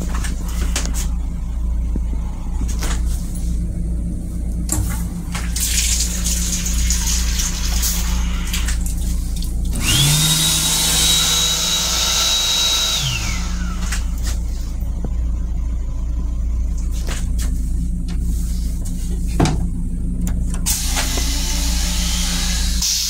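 In an M7 railcar restroom, the sink faucet runs with a whine that rises to a steady high pitch about ten seconds in, holds for about three seconds, and falls away. Around it there is a steady low hum and repeated hissing rushes.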